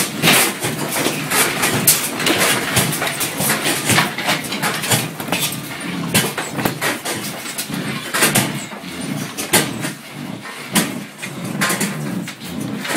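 Office interior rattling and clattering as the building is shaken by an earthquake: many sharp knocks and rattles over a steady low rumble.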